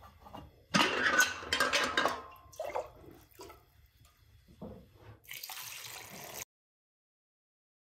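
Metal lid of an aluminium milk can unlatched and swung open with a ringing clatter, a few light knocks as an enamel mug is scooped into the water inside, then water poured from the mug over eels in an enamel basin, cutting off suddenly.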